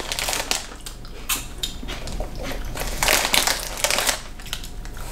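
Crinkling of a plastic snack bag being handled, with crunching of the corn potage snack being eaten: irregular crackles, busiest about three seconds in.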